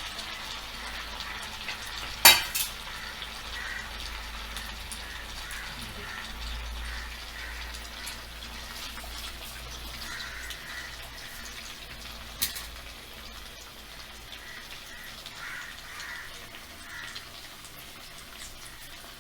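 Stuffed bread rolls deep-frying in hot oil in a small kadai, a steady sizzle. A sharp knock about two seconds in, the loudest sound, and another around twelve seconds.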